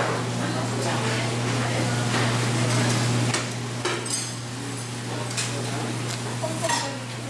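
Dishes and bowls clinking and knocking together as people wash up at a row of sinks, a few strikes ringing briefly. A steady low hum underneath stops a little after three seconds in.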